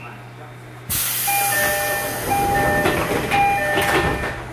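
Fujikyu 6000-series electric train (ex-JR East 205 series) at departure. A loud hiss of compressed air starts suddenly about a second in, while a two-note door-closing chime sounds three times, about once a second.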